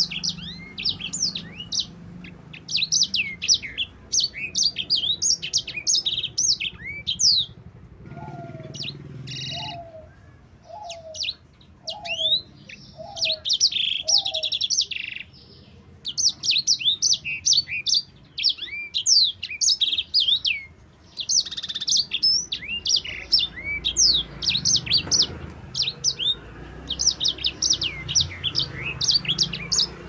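Caged sanger finch singing a long, fast rolling song of high chirps and trills, in runs broken by short pauses. About a third of the way in, a lower call repeats six times in the background.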